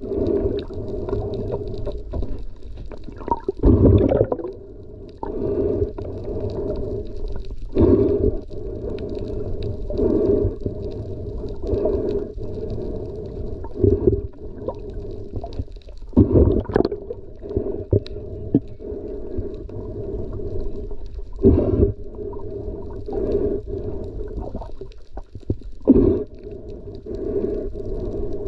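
Muffled underwater rumble and gurgle of water moving against a submerged camera's housing, with brief louder surges every few seconds.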